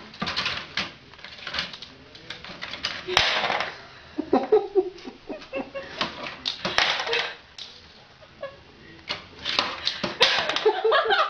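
A rabbit scrabbling on paper in a plastic tray: quick scratching and rustling of claws on paper, with knocks and clatter as it shoves and flings a small ball against the tray.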